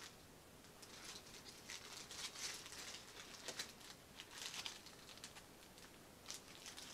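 Faint rustling and crinkling of packaging in scattered short bursts, as items are handled in a cardboard box and a medal in a small clear plastic bag is unwrapped.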